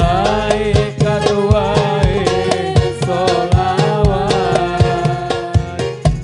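Hadroh ensemble playing sholawat: hand-struck frame drums keep a steady rhythm under a long, melismatic sung melody that bends up and down.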